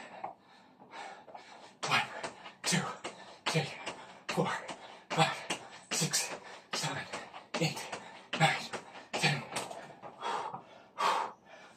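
A man's heavy, rhythmic breathing while exercising: forceful exhales about once every 0.8 seconds, starting about two seconds in.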